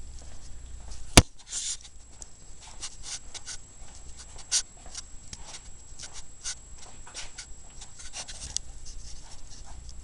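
Paper rustling and crackling in short, irregular bursts as script pages are handled and gathered. One sharp click about a second in.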